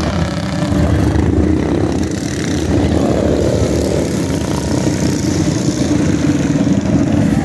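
Mini bike engines running in a steady drone, picking up briefly about three seconds in.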